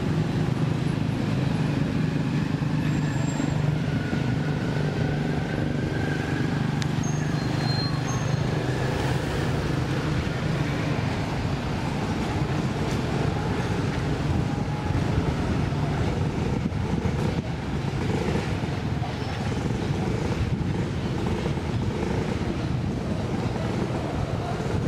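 Steady low rumble of motor-vehicle engines, with a few brief faint high whistled tones in the first part.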